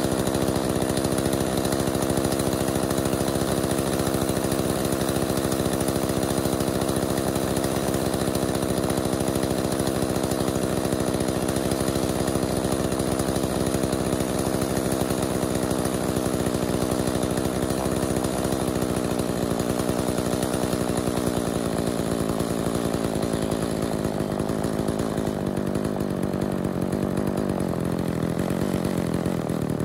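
Homelite Super 2 chainsaw's two-stroke engine running at a fast idle while its carburetor is tuned with a screwdriver. The engine note is steady, then drops gradually over the last ten seconds or so as the engine slows under the adjustment.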